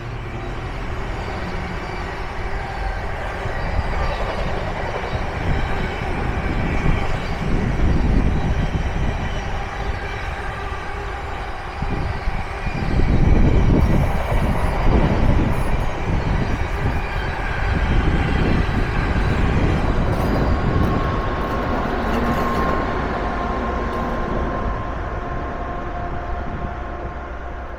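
A train running past on the rails, with a continuous low rumble that is loudest about halfway through and a steady whine that comes in during the second half.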